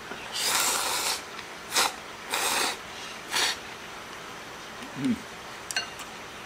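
Cold ramen noodles slurped in four loud sucking bursts over the first three and a half seconds. About five seconds in there is a short low hum falling in pitch, and near the end two light clicks of chopsticks against the ceramic bowl.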